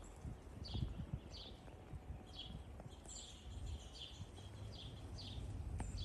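Small birds chirping outdoors in a winter storm: short, high calls repeated about twice a second, over a low, uneven rumble.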